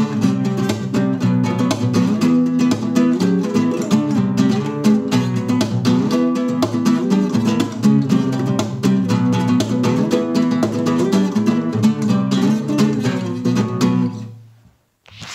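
Nylon-string Spanish guitar strummed in flamenco style, fast rhythmic strokes across the strings with chord changes. The playing stops and rings away about a second before the end, followed by a single sharp click.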